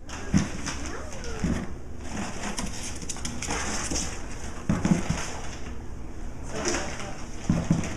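Rustling and crinkling of pet toys and cardboard on a tile floor, with about five low knocks and a few short low calls.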